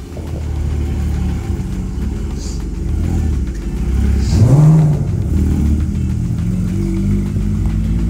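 Sports car engines idling with a steady drone, and one engine revved once about four seconds in, its pitch rising then dropping back.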